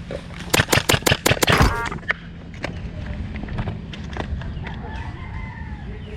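Airsoft gun firing a quick string of about eight shots in just over a second, followed by scattered fainter shots.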